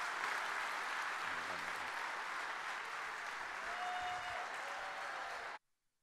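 Congregation applauding in welcome, a steady even clatter of many hands that cuts off suddenly near the end.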